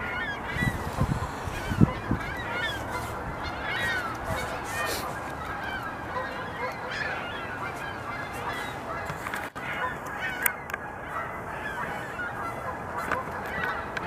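A flock of birds calling all through, many short overlapping calls. A beaver gnaws bark off a log with a few sharp crunches in the first two seconds.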